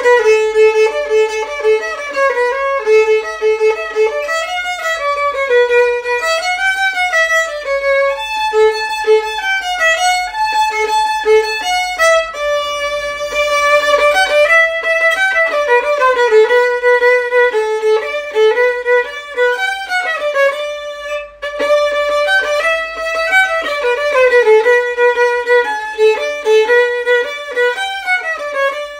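Background music: a melody of quick notes moving up and down.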